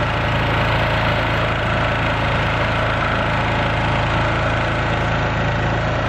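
Portable gasoline generator and upright air compressor running steadily at close range: a loud, even engine noise with a strong low hum.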